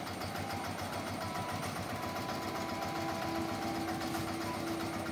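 Small engine idling with a rapid, steady beat. A faint steady tone joins about three seconds in.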